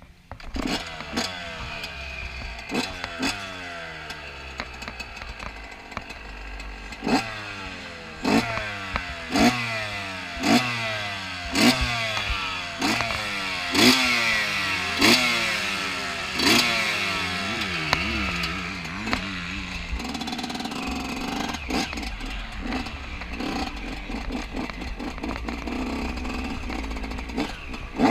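Yamaha YZ125 single-cylinder two-stroke motocross engine revved in a run of quick throttle blips, about one a second, each a sharp rise and fall in pitch; in the last third it runs more steadily.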